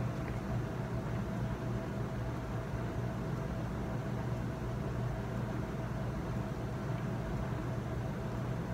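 Steady room tone: a low, even machine hum of the kind made by air handling or air conditioning, with a faint steady tone above it and no other events.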